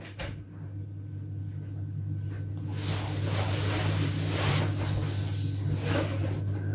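Steady low hum, with rustling and shuffling noises about halfway through as a person moves up to a table beside plastic shopping bags and sits down.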